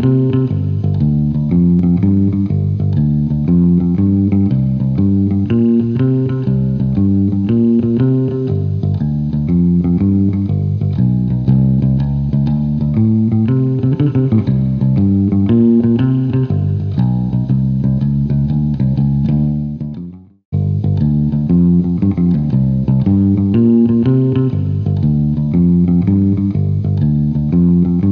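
Background music with a plucked bass and guitar playing a repeating rhythmic pattern. About two-thirds of the way through it fades out, drops to silence for a moment, then starts again abruptly.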